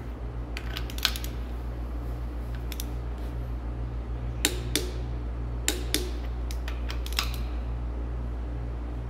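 Click-type torque wrench clicking several times, some in quick pairs, as the Jake brake housing bolts on a Caterpillar 3406B cylinder head reach their set torque of 60 ft-lb. A steady low hum runs underneath.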